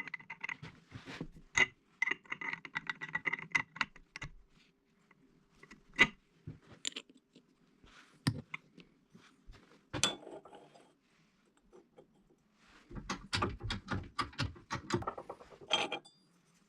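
Metal clicking and clinking from a hand-start ratchet crown for a 165YML engine being handled. The clicks come in irregular bursts, with a dense run near the end, over a faint steady hum.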